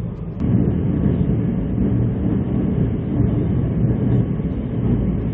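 Train running along the track, heard from inside the carriage as a steady, loud rumble that steps up about half a second in.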